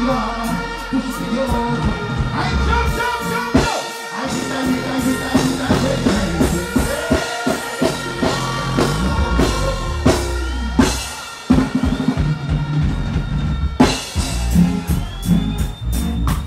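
Live reggae band music through a concert sound system: a vocalist singing into the microphone over drum kit hits and a steady bass line.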